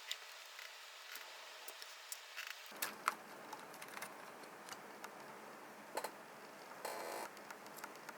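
Scattered light clicks and taps of small parts and tools being handled during a radio repair, with a short scrape about seven seconds in, over a faint steady hiss.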